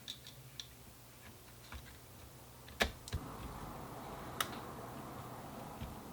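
Small clicks and taps of plastic camera parts being handled and fitted during a DSLR repair, with two sharper clicks about three and four and a half seconds in.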